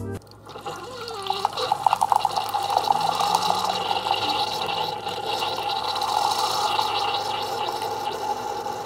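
Espresso machine pump humming steadily as coffee streams into a glass mug, with a stretch of sputtering between about one and a half and three seconds in.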